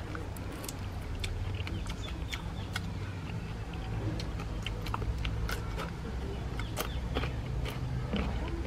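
A man eating grilled chicken up close: biting into the meat and chewing with mouth open, giving irregular sharp wet clicks and crunches over a low steady hum.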